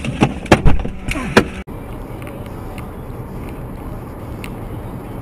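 A quick run of sharp knocks and clatters, then an abrupt cut, about a second and a half in, to the steady road and engine noise inside a car cruising on a highway at about 95 km/h.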